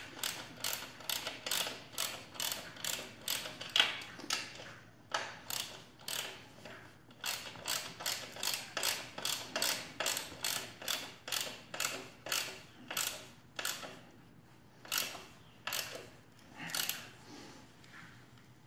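Hand socket ratchet clicking in repeated back-and-forth strokes, about two a second, with a few short pauses, as it tightens a rear shock's lower mounting bolt.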